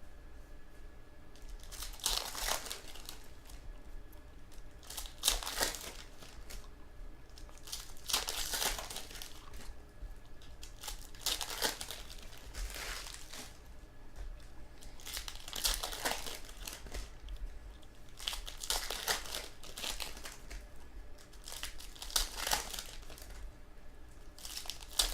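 Foil trading-card pack wrappers crinkling and tearing as packs are ripped open one after another, a short burst every three seconds or so.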